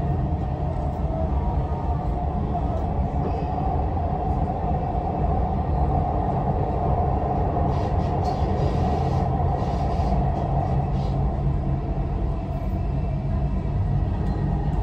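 Dubai Metro train running at speed, heard from inside the carriage: a steady low rumble with a continuous whine over it.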